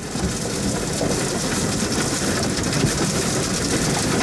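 Tornadic wind and driving rain pelting an armored storm-chasing vehicle, heard from inside the cab: a dense, steady rush peppered with many small hits on the body and windshield.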